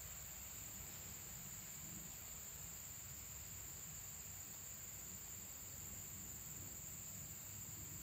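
Steady high-pitched chorus of crickets trilling without a break, over a faint low rumble.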